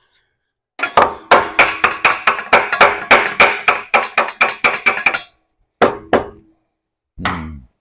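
Hammer striking steel in a quick, even run of blows, about four a second, then three single strikes near the end: a spring shackle bracket being knocked into place on a truck frame rail. The fresh paint is making it a tight fit.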